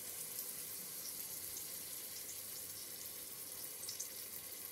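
Steady sizzling hiss of chicken and chickpeas cooking in the pot, with water being poured into the hot pot near the end and a few faint crackles.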